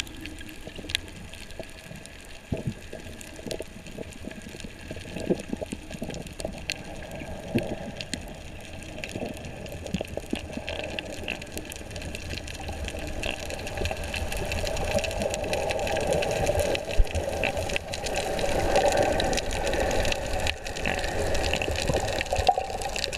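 Underwater sound picked up through an action camera's waterproof housing: a steady rush of water with a faint hum and scattered clicks, getting louder in the second half.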